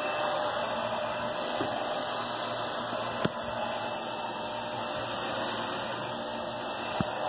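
Vacuum cleaner running steadily, a constant whooshing drone with a faint whine in it. A single brief click about three seconds in.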